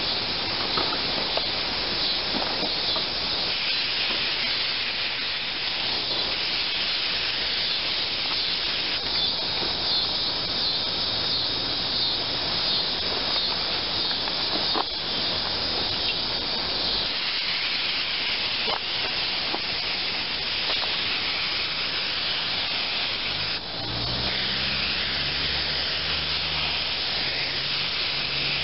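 Aerosol spray adhesive hissing from the can as it is sprayed onto seat foam in long passes, the hiss changing and briefly dropping out a few times. A low hum joins near the end.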